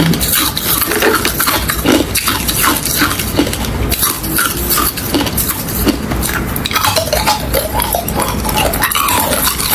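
Mouth chewing crushed ice, a dense, continuous run of crisp crunches and cracks.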